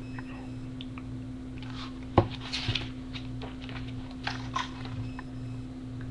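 A picture book being handled, with a few short paper rustles and a sharp knock a little over two seconds in, over a steady low hum.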